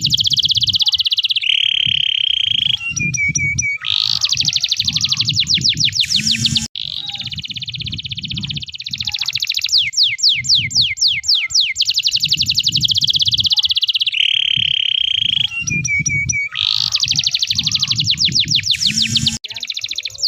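Domestic canary singing a long, unbroken song of fast trills of rapid repeated notes, broken by a held steady note and short lower notes. The same sequence of phrases comes round twice.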